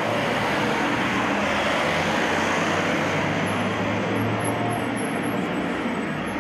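Road traffic on a busy street: a steady rush of passing cars, with one vehicle's low engine hum growing louder for a few seconds in the middle.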